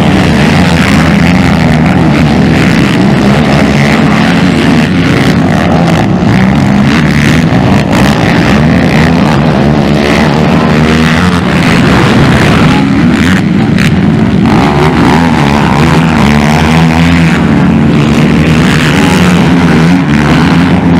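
Several racing ATV (quad) engines revving hard at once, their pitch rising and falling as riders accelerate, shift and let off through the corners and jumps.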